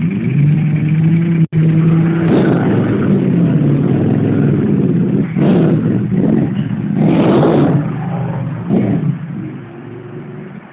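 Motorcycle engines, among them a Ducati 998S's V-twin, idling and then revved in several rising bursts as the bikes pull away. The sound fades as they ride off near the end.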